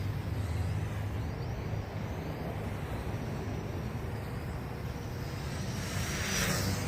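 Small quadcopter's propellers buzzing in flight, with faint rising and falling motor whine, swelling louder about six seconds in as it passes close, over a steady low rumble.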